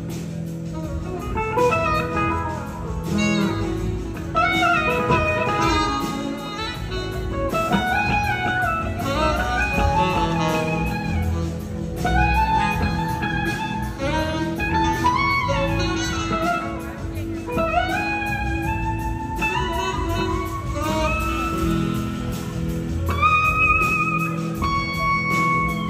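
Live blues-rock band playing through a PA: an electric guitar lead with gliding, sliding phrases over bass and drums, ending in a long held note.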